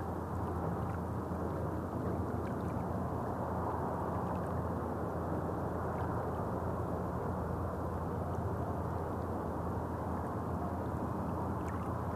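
Lake water lapping gently on a pebble shore, with faint small ticks of water on stones, over a steady low rumble of road traffic.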